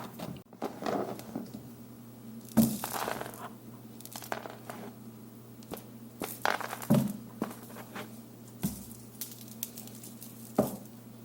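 Small beads rattling and clicking inside a hollow plastic hula hoop as they are shaken out through its opening, in irregular clatters with louder ones about two and a half seconds in and again around seven seconds.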